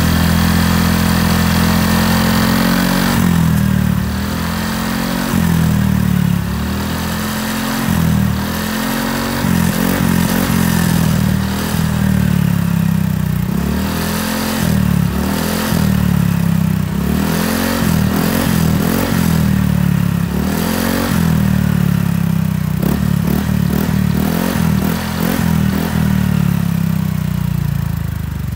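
Honda PCX 150 scooter's single-cylinder engine through a Krace 'standard racing' aftermarket muffler. It runs steadily for about three seconds, then is revved again and again, the pitch rising and falling with each throttle blip while the rear wheel spins off the ground.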